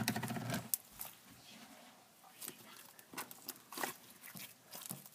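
Fingers poking and pressing into slime, making short wet clicks and squishes: a quick crackling run in the first second, then a handful of separate pokes.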